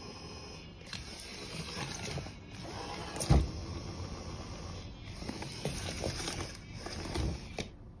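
Plastic bag rustling and crinkling in uneven bursts as a battery-powered toy mouse scuttles about inside it, with small clicks and one sharp thump about three seconds in.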